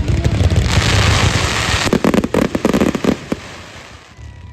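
Fireworks going off: rapid bangs over a dense crackling hiss, the barrage dying away about three and a half seconds in.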